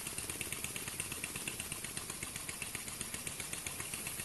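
Home-made cast-aluminium oscillating (wobbler) steam engine running on compressed air, giving a quick, even chuffing of exhaust puffs, about seven a second. It has no flywheel or base fitted yet.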